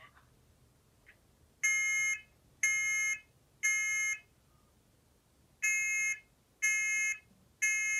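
First Alert smoke alarm horn sounding the temporal-three evacuation pattern: three loud, shrill beeps about a second apart, a pause, then three more. This is the pattern an alarm gives when its test button is held.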